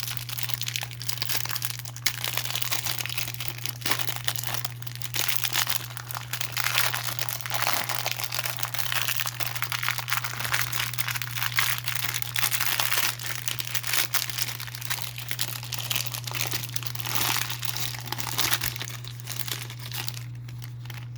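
Plastic wrapper of a 1990 Topps baseball rack pack crinkling and tearing as it is worked open by hand, in irregular crackles throughout. A steady low hum runs underneath.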